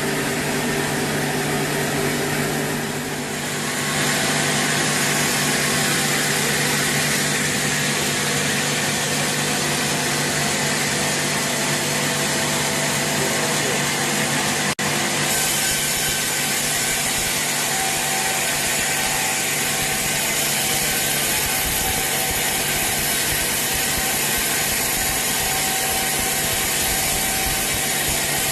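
Sawmill saw cutting through a large teak log: a steady, continuous rasp of the blade in the wood over a constant machine hum, with a slight dip about three seconds in and a momentary cut-out about halfway.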